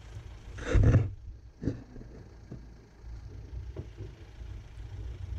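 Jeep's engine running at low revs on a 4x4 trail, a steady low rumble. Just under a second in comes a loud short burst of noise, followed by a sharper knock and a few faint clicks.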